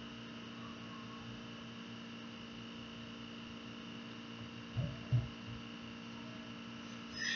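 Steady electrical hum, with two soft low thumps about five seconds in as a hand works the beads of an abacus.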